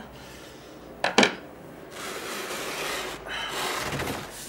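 A sharp clack about a second in, then a studio monitor's cabinet scraping and rubbing across a workbench for about two seconds as it is turned around to face front.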